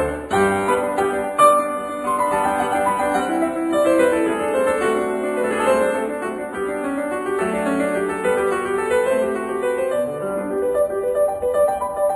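Background piano music: a flowing melody of short notes stepping up and down over longer held lower notes.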